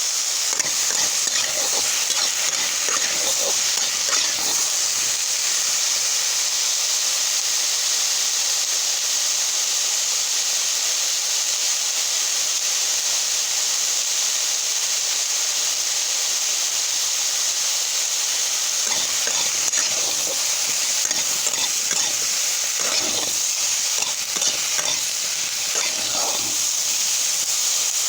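Vegetables frying in a pan, a steady loud sizzle, with the scrape and rattle of stirring now and then, mostly in the first few seconds and again in the latter half.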